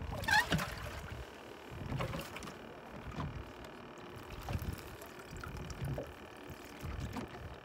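Water splashing and lapping against a small boat's side, with irregular soft knocks and thumps about once a second.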